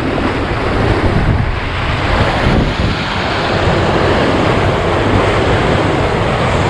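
Wind buffeting the microphone and water rushing along the hull of a moving river cruise boat, over a steady low hum from the boat's engine.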